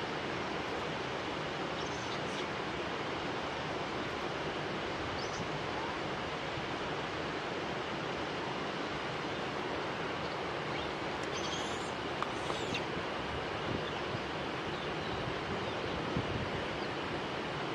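Steady, even outdoor rushing noise, with a few faint, short, high-pitched chirps.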